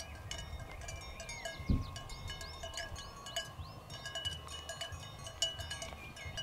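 Cowbells on grazing cattle clanking irregularly, many short ringing strikes, over a low rumble. A single low thump comes a little under two seconds in.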